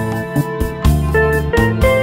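Instrumental music: a slow ballad with a sustained lead melody, guitar-like, over keyboard chords and a bass line.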